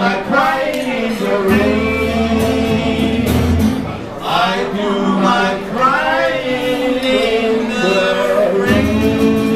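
Two men singing together to a strummed acoustic guitar.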